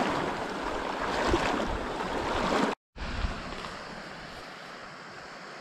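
Running stream water with wind, a steady rushing noise. The sound drops out for an instant a little under three seconds in and comes back quieter.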